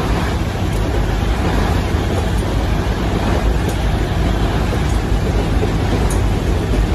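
Loud, steady engine and rushing-wind noise inside a military transport aircraft's cargo hold with the paratroop door open.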